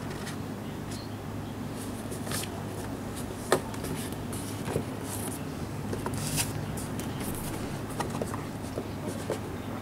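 Cardboard toy box with a clear plastic window being handled and turned in the hands: scattered light clicks and rustles, the sharpest about three and a half seconds in, over a steady low hum.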